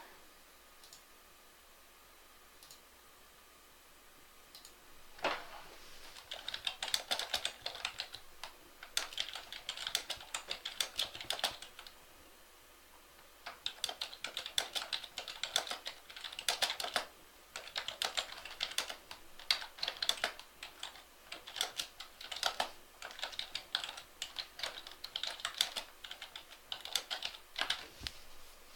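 Typing on a computer keyboard: runs of quick keystrokes broken by short pauses, starting about five seconds in.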